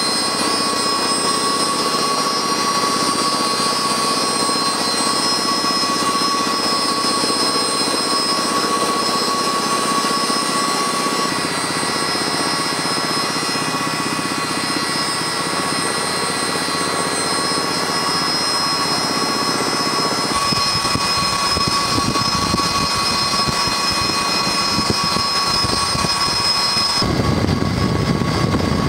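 Helicopter running close by: a steady high turbine whine over rotor noise. Partway through, a rougher, deeper rotor sound comes in, and it grows louder near the end.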